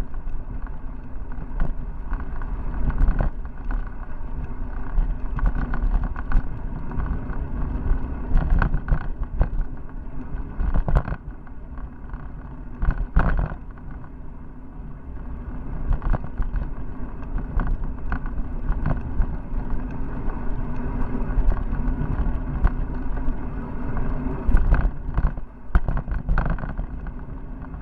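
Road bicycle rolling on asphalt, heard through a handlebar-mounted Cycliq Fly12 camera: a steady rumble broken by frequent short knocks and rattles from bumps in the road.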